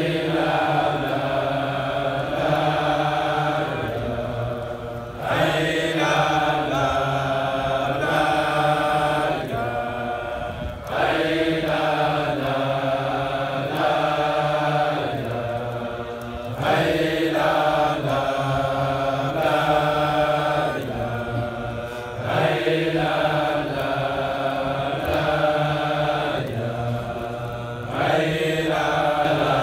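Men's voices chanting a Sufi devotional chant (hadra dhikr). The chant runs in long, held, melodic phrases that restart about every five to six seconds.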